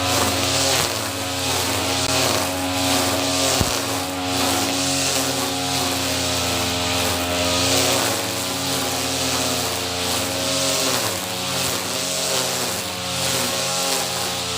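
Two-stroke brush cutter (grass trimmer) engine running under load, its pitch wavering up and down as the operator cuts grass.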